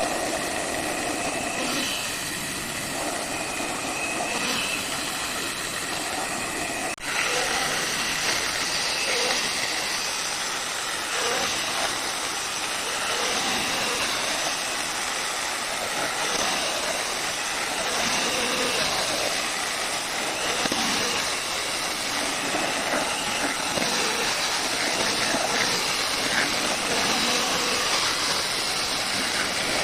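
Electric saw running and cutting through timber: a steady, continuous machine noise with a faint whine, briefly cut off about seven seconds in.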